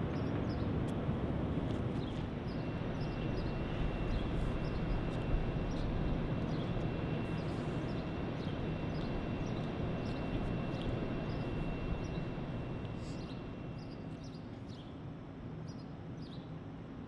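Outdoor rooftop ambience: a steady low rumble of wind and distant city traffic, with birds chirping on and off. A faint, thin high tone holds through the middle, and the rumble eases off over the last few seconds.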